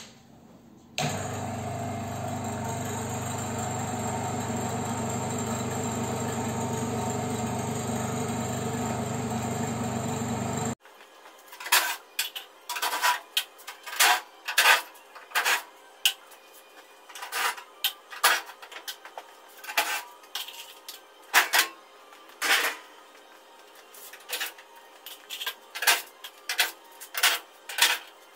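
A refrigerant recovery machine switches on about a second in and runs with a steady hum, pumping refrigerant out of the air-conditioner's outdoor unit into a recovery cylinder. It cuts off suddenly after about ten seconds. A string of short, sharp clicks and rattles with pauses follows, as a cordless drill-driver backs the screws out of the outdoor unit's casing panels.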